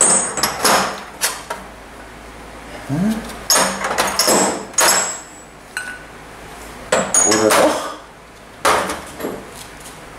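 Steel sockets from a large socket set clinking and clattering against each other and the metal tray as they are picked out and set down, in several separate bursts.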